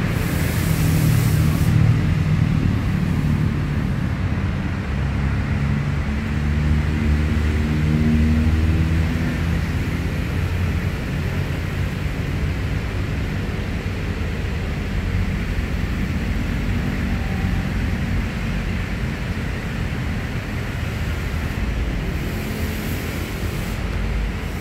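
An engine running steadily with a low hum whose pitch drifts up and down a little. A brief hiss comes in at the start and again near the end.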